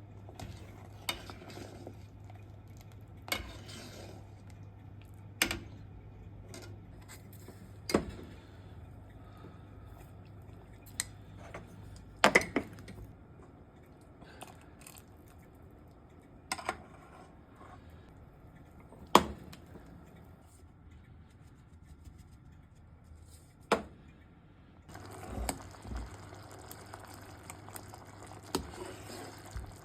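Cookware and utensils clinking and knocking now and then, over a steady low hum. The hum stops about 13 seconds in and comes back with a steady hiss near the end.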